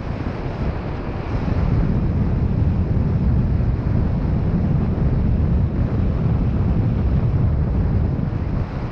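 Wind buffeting the microphone, a steady low rumble that gets louder about a second and a half in.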